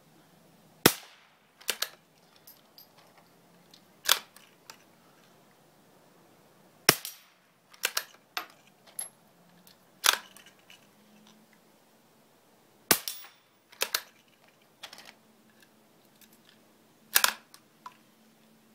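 Marlin Model 122 single-shot bolt-action .22 rifle being fired, about six sharp cracks spaced roughly three seconds apart, with fainter clicks in between.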